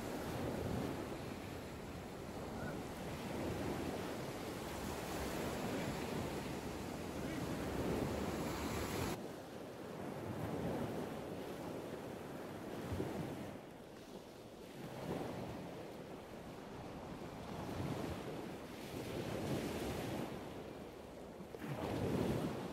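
Sea waves washing in and breaking, swelling and easing every few seconds, with wind on the microphone.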